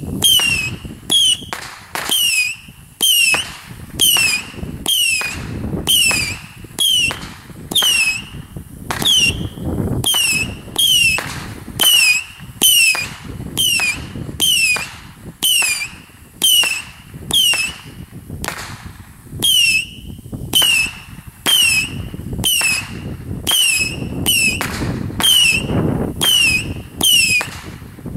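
Ground fireworks going off in a long rapid string, roughly one to two a second: each a sharp pop with a short whistle that falls in pitch.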